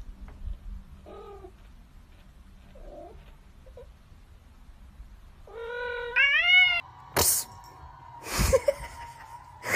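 Cat meowing: a few faint short mews, then, about two-thirds in, one loud drawn-out meow that rises and wavers in pitch, followed by a couple of sharp knocks.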